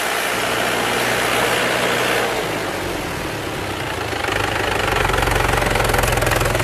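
Mahindra 575 DI tractor's diesel engine working hard pulling a loaded trolley through soft ground. About four seconds in it becomes louder and deeper, with a fast, even diesel clatter.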